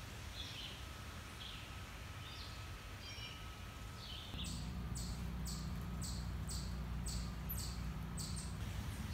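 Quiet outdoor ambience with faint bird chirps. About four seconds in, a low steady hum starts, along with short high-pitched chirps that repeat about twice a second.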